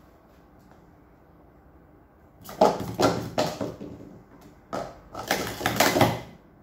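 Plastic sport-stacking cups clattering rapidly as they are stacked up into pyramids and then swept back down on a stacking mat, in two quick bursts of clicks and knocks about a second and a half each.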